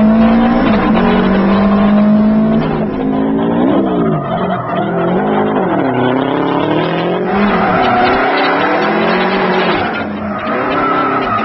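Subaru Impreza WRX STI's turbocharged flat-four engine revving hard while drifting, its pitch swinging up and down with throttle and gear changes over tyre noise. The engine sound changes abruptly a few times.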